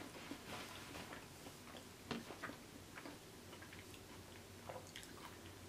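Faint close-up chewing, with scattered soft mouth clicks.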